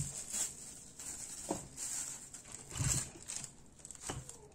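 Bubble wrap rustling and crinkling as it is handled and an accessory is unwrapped, with three soft knocks spaced about a second and a half apart.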